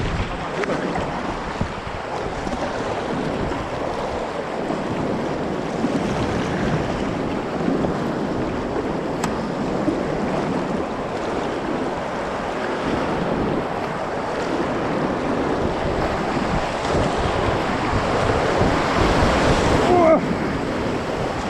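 Fast river current rushing and splashing around a kayak, steady at first and growing louder near the end as the boat closes on the whitewater of a rock ramp (Sohlrampe).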